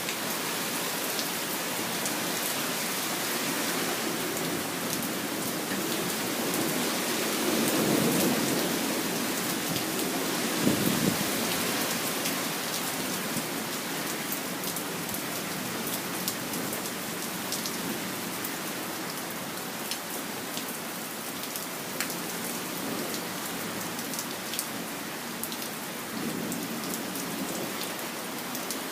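Steady rain falling, a constant hiss with scattered sharper drop hits. A low rumble swells briefly about eight to eleven seconds in, and again faintly near the end.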